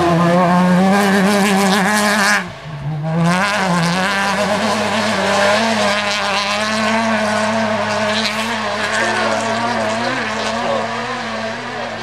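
Rally-raid car engine running hard at high, fairly steady revs, with a sharp break in the sound about two and a half seconds in before the engine note picks up again.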